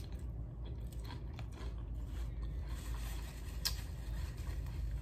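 A person chewing crunchy tortilla-chip nachos, with a few sharp crunches spread through.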